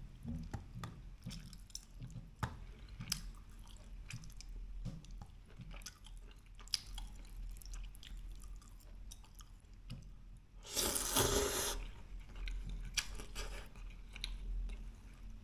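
A person chewing food close to the microphone, with many small wet mouth clicks. About two-thirds of the way through comes a louder, breathy rush of noise lasting about a second.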